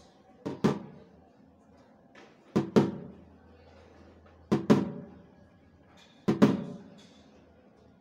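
Snare drum played as a right-hand flam four times, about two seconds apart: a softer left-hand grace note lands just ahead of each louder right-hand main stroke.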